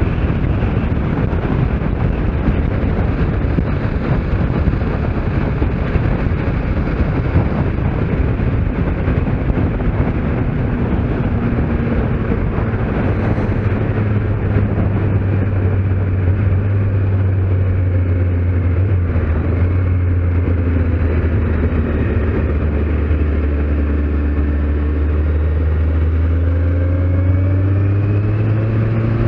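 Kawasaki Z750S inline-four motorcycle at road speed, heard with heavy wind rush over the onboard microphone. About halfway through the wind eases and the engine's steady low drone comes through, rising in pitch near the end.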